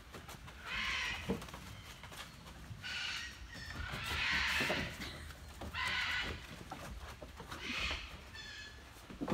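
Lion cubs calling: five short, raspy calls spaced a second or two apart, the one about four seconds in the loudest and longest.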